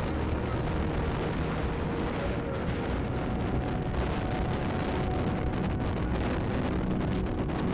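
Wind blowing across the microphone outdoors, a steady rumbling rush with no breaks.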